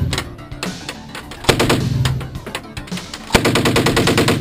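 Uzi submachine gun fired on full automatic in rapid bursts of shots: the end of one burst at the start, a short burst about a second and a half in, and a longer burst starting a little after three seconds in.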